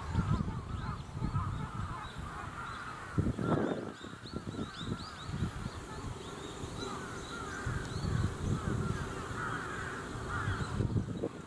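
Many birds chirping and calling over each other in a continuous chatter, with irregular bursts of low rumble, the strongest about three seconds in.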